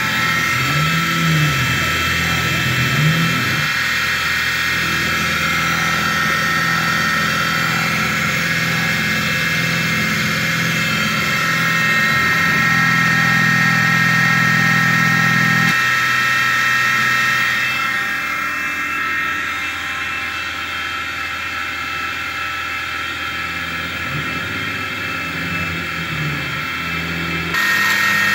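Small benchtop CNC mill cutting acetal plastic with a 1/4-inch two-flute carbide end mill, its spindle at 2500 rpm giving a steady high whine. Under it a lower motor hum rises and falls in pitch in the first few seconds as the feed changes. The cutting is a little quieter in the second half and louder again near the end.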